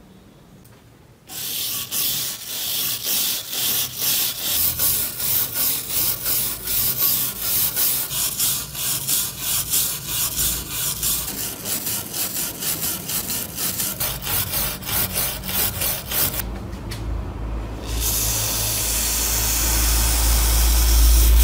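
A hand wire brush scrubbing rust off a steel claw hammer head in quick back-and-forth strokes, starting about a second in. After a short pause near the end, a steady spray hiss as the head is rinsed.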